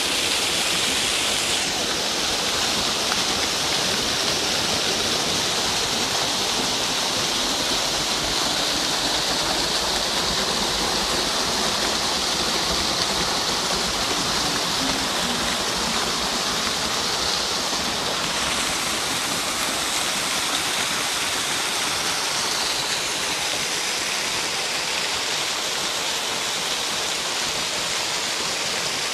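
Small waterfall, thin streams of water falling and splashing over moss-covered rock: a steady rushing hiss, heard close to the falling water.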